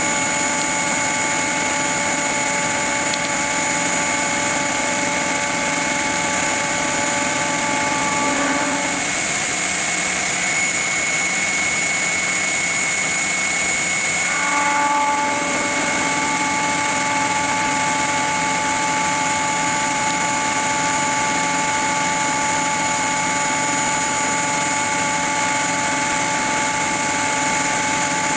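CNC milling machine running and cutting, with a steady hum and hiss. A set of evenly spaced pitched tones drops out for about five seconds near the middle and then returns, while a higher whine carries on throughout.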